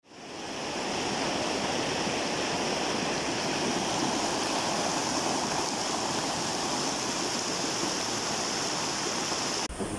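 Muddy floodwater rushing down a street as a fast torrent, a steady rushing of water that cuts off abruptly near the end.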